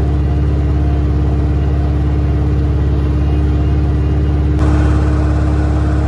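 Bobcat skid-steer loader engine running at a steady speed, heard loud from inside the operator's cab. The tone changes abruptly about four and a half seconds in.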